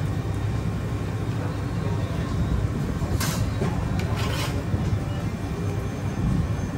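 A steady low background rumble, with two short, sharp scrapes of a spoon against a ceramic platter about three and four seconds in.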